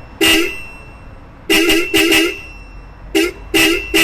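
Aftermarket 12 V disc car horn sold as a Hella (a Chinese-made 'Superhorn' marked 400 Hz) sounding in about seven short toots, several in quick pairs, each a single steady buzzy tone. It is not quite the genuine Hella sound.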